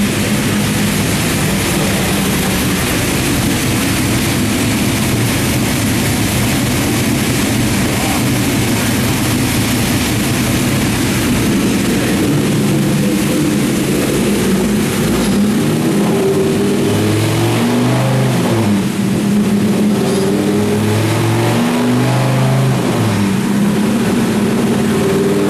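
Dodge Ram SRT-10's 8.3-litre V10 running steadily, then revved up and down several times in the second half.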